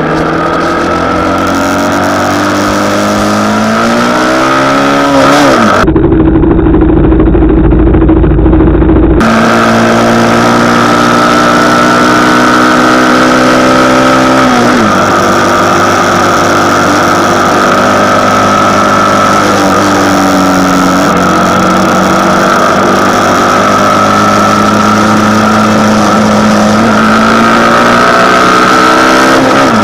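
Motorcycle engine running on the move. Its pitch climbs and then drops sharply twice as it speeds up and shifts, with a few seconds of heavy low rumble near the start.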